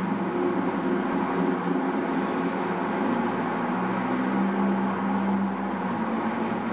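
Steady road traffic noise: cars passing on a busy street, with a continuous engine hum.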